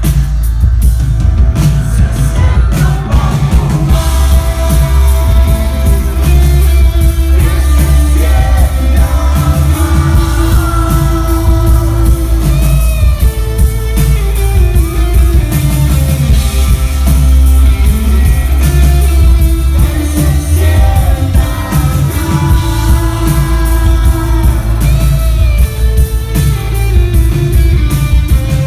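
Live indie rock band playing loudly: an electric guitar carrying bending melodic lines over heavy bass, drums and keyboard.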